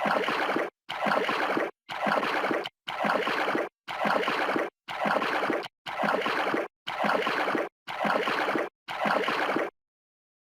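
Water sloshing and gurgling in a string of short edited clips, about one a second, each cut off abruptly, with silence near the end.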